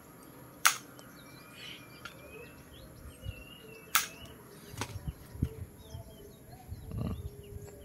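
Flush-cut side cutters snipping excess component leads off a circuit board: two sharp snips, about a second in and at four seconds, with a fainter click just after and some handling knocks. Birds chirp in the background.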